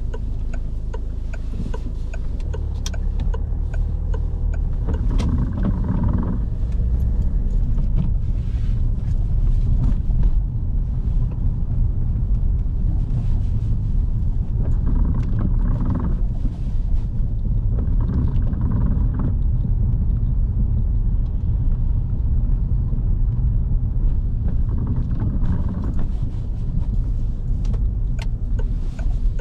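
Steady low rumble of a car's engine and tyres on wet road, heard from inside the cabin, with scattered small clicks and ticks.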